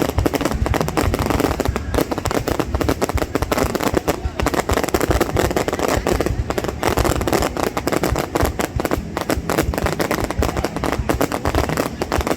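Fireworks display: a dense, unbroken barrage of bangs and crackles, with crowd voices underneath.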